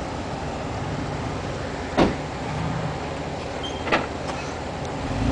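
Jeep Wrangler engine running steadily under a tow-strap pull in mud, with two sharp knocks about two seconds apart.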